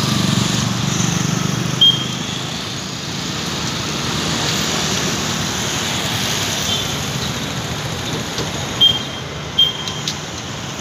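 Busy street traffic, mostly motorcycles and scooters running past, with an engine passing close at the start. Short horn beeps sound about two seconds in and twice more near the end.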